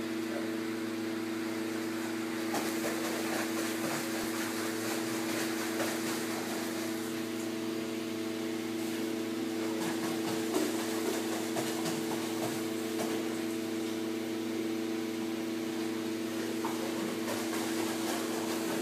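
Steady machine hum with several held low tones, unchanging throughout, typical of the pumps and air-handling plant of an indoor pool hall.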